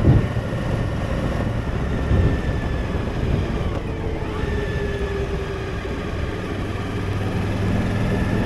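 Suzuki V-Strom motorcycle cruising at about 27 mph, its engine running with a steady note under road and wind noise.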